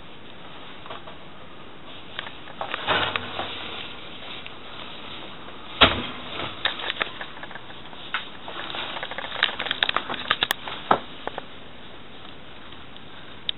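Rubber Wellington boots knocking and scuffing against an open oven and a wooden floor, with rustling handling noise: scattered knocks, one sharp thump just before the middle, and a quick run of clicks and scuffs later on.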